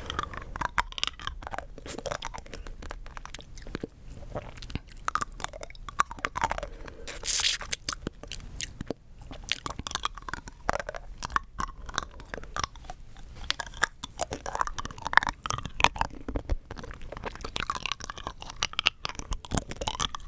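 Rock candy being bitten and crunched close to the microphone: a dense, irregular run of sharp, brittle cracks and crunches as the sugar crystals break between the teeth, mixed with chewing.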